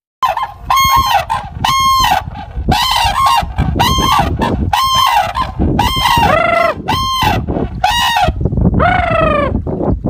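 Red-crowned cranes calling: a rapid series of loud, ringing trumpet-like calls, about two a second, each note bending down at its end. The last call, near the end, is longer and slides lower.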